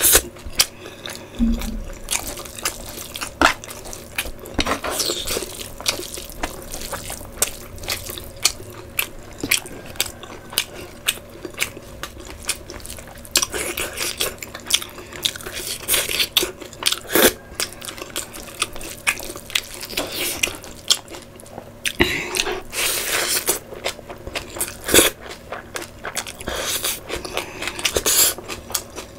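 A person eating rice and curry by hand: steady chewing and wet mouth sounds, with many short crunches and smacks.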